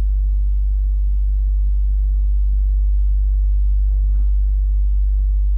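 Steady low electrical hum with faint evenly spaced overtones, unchanging throughout.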